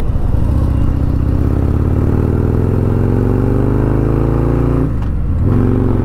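Harley-Davidson Street Glide's Milwaukee-Eight V-twin engine accelerating, its pitch rising steadily through a gear. About five seconds in it breaks off briefly for a gear change, then climbs again from a lower pitch.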